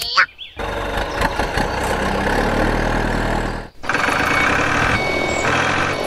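Vehicle engine sound effect dubbed over toy vehicles: an engine starts up and runs steadily, cuts out briefly near the middle, then runs again with a high beeping tone added.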